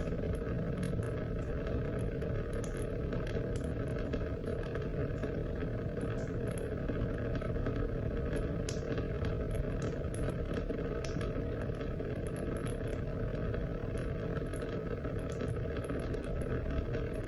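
Steady rain: a continuous, even rush of water with scattered small, high ticks.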